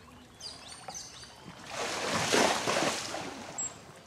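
Birds chirping briefly, then a water splash lasting about a second and a half, loudest a little over two seconds in.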